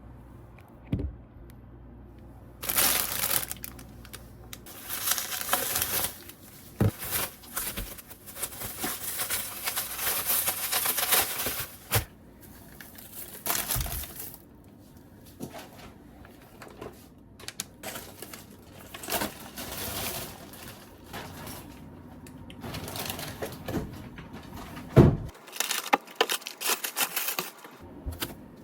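Irregular rustling and handling noises with a few sharp knocks, the loudest about 25 seconds in.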